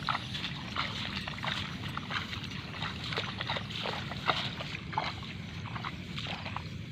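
Footsteps sloshing through shallow water and mud in a flooded rice paddy: irregular splashes and squelches, several a second, over a steady low rumble.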